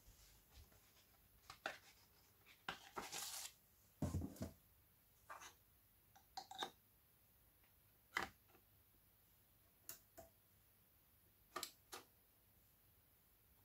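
Faint handling noises as a 7-inch single is set on a JVC QL-F61 turntable's platter: a brief rustle, a low thump about four seconds in, then scattered light clicks, the last two near the end as the turntable's front-panel buttons are pressed.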